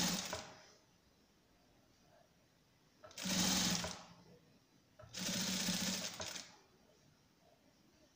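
Electric sewing machine stitching along a folded fabric edge in short runs. One run trails off right at the start, then two runs of about a second each come about three and five seconds in, with quiet pauses between.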